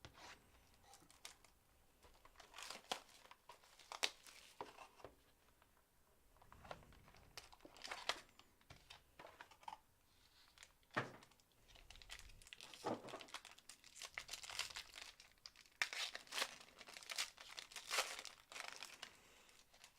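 Trading card pack and box wrapping crinkling and tearing as packs of baseball cards are opened, in a string of short, faint crackles and clicks.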